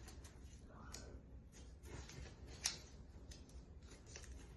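Paper being folded and creased by hand, faint scattered rustles with a few sharp crinkles, the loudest a little before the middle.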